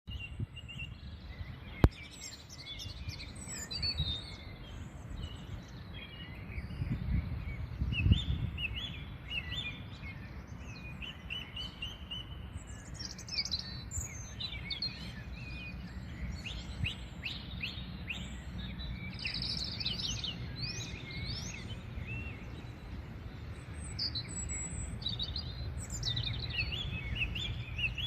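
Small birds chirping and singing, many short high notes that rise and fall, over a steady low rumble. A sharp click comes about two seconds in and a thump about eight seconds in.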